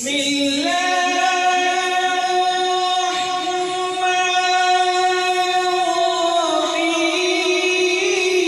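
A man reciting the Quran in melodic tajweed style, holding one long drawn-out note; the melody shifts slightly about six and a half seconds in.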